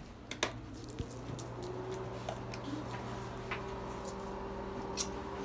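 Phone handling noise: scattered small clicks and rustles over a steady low hum.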